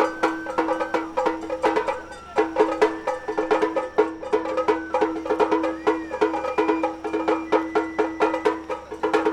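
Japanese festival music (matsuri-bayashi): rapid, dense drum strikes with a high bamboo flute holding long notes over them, one note bending up and back down about two-thirds of the way through.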